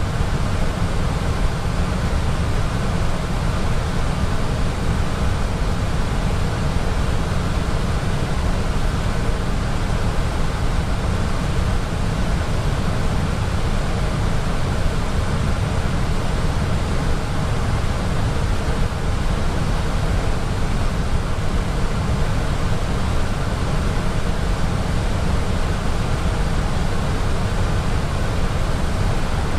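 Steady cockpit noise of an Airbus A320 in descent: an even rush of airflow and air-conditioning, strongest in the low end, with no distinct events.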